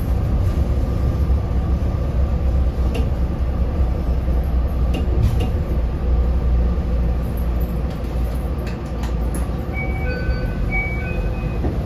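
Yokkaichi Asunarou Railway narrow-gauge railcar running, heard from inside the cabin: a steady low rumble of wheels and motor with a few scattered clicks, easing slightly as it comes along the platform. A few short high tones at different pitches sound near the end.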